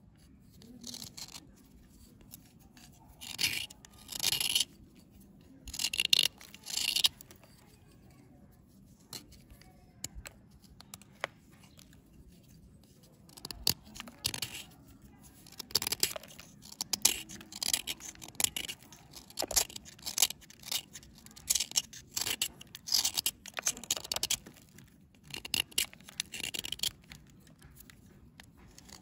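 Knife blade scraping and shaving a dry, crumbly bar in short, irregular scratchy strokes, pausing for a few seconds midway before the strokes come thick and fast again.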